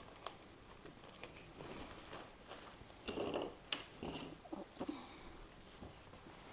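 Faint handling sounds of artificial flower stems and leaves rustling as they are set into a floral foam arrangement, with a few short scrapes and clicks around the middle.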